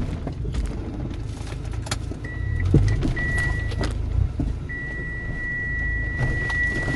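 Hyundai Terracan SUV's engine running low and heavy on a failed climb up a steep dirt slope, with several sharp knocks from the body and suspension. A thin, high electronic beep from the vehicle starts about two seconds in, broken at first and then held continuously through the second half.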